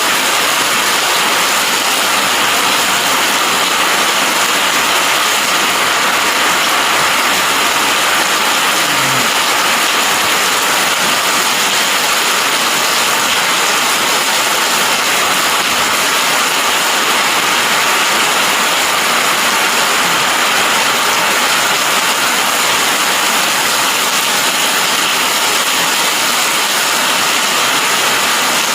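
Heavy rain falling, a loud steady hiss with no break.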